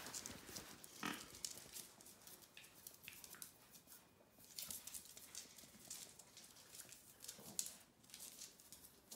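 Two puppies play-fighting, faintly heard: small vocal noises from the puppies amid scattered light taps and scuffles of paws and claws on a cork floor.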